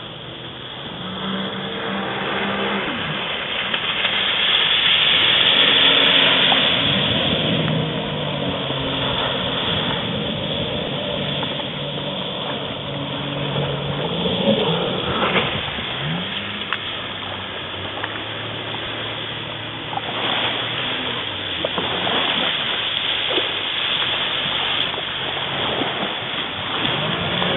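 Jet ski engine running and changing speed, its pitch rising and falling, over a steady rushing hiss. It is loudest a few seconds in.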